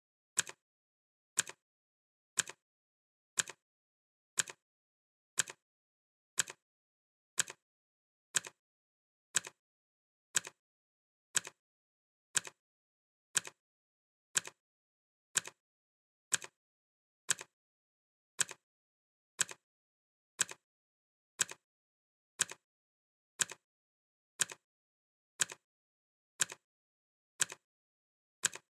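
Clock ticking, one sharp tick a second, each tick followed closely by a fainter click.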